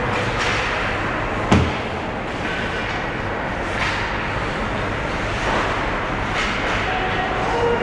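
Ice hockey rink noise during a youth game: a steady wash of arena and crowd sound, with one sharp knock about a second and a half in and a few fainter short scrapes or taps.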